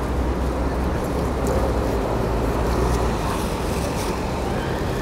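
Steady rumble of city road traffic passing close by.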